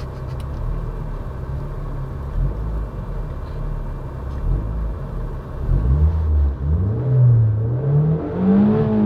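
Opel Astra Coupe Bertone engine with an aftermarket exhaust, heard from inside the cabin while the car stands still. It idles low and steady, then from about six seconds in it is revved several times, the pitch rising and falling, up to about 4,500 rpm near the end.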